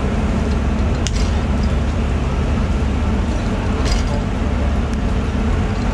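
Boat machinery running with a steady low rumble as a hoist lifts a heavy tuna out of the hold. A sharp click comes about a second in and another about four seconds in.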